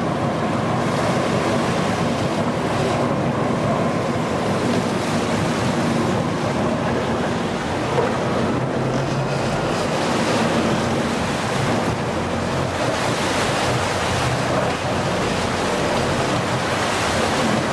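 Steady wind buffeting the microphone and sea water washing past the boat's hull, with a low boat engine hum underneath.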